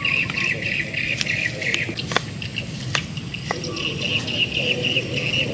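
Water trickles from a coconut-shell cup onto tamarind pulp at the start. Then a wooden spoon mashes and stirs the tamarind in a coconut-shell bowl, with a handful of sharp clicks as it knocks against the shell. Birds or insects chirp steadily in the background.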